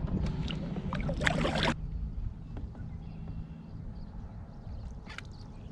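Kayak paddle strokes splashing in the water for the first second and a half, stopping abruptly, then a low wind rumble on the microphone.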